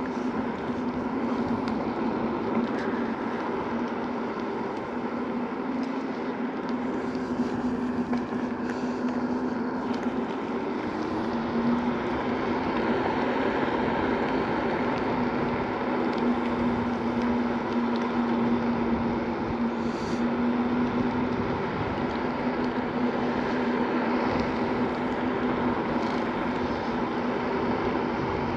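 Segway Ninebot Max G2 electric scooter riding at speed: a steady hum with tyre noise from the coarse path surface, the hum wavering slightly about ten seconds in.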